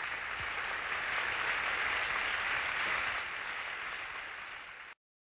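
Theatre audience applauding, swelling for about two seconds and then tapering, cut off abruptly near the end.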